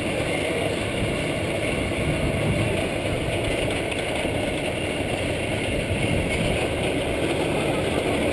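Lisebergbanan's steel roller coaster train running along its track, a steady rumble heard from a rider's seat.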